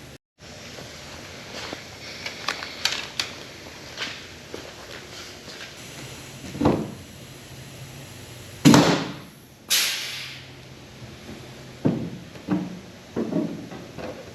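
Pop-riveting race-car body sheet metal: scattered clicks, clanks and knocks, with two short, loud hissing bursts about nine and ten seconds in.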